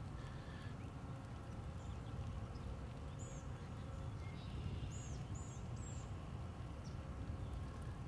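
Faint outdoor ambience: a low steady rumble with a few short, high bird chirps, one a little after three seconds in and three in quick succession around five to six seconds in.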